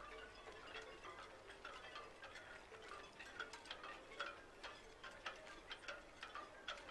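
Faint, irregular tinkling of chime-like pings and light ticks, several a second, each ringing briefly.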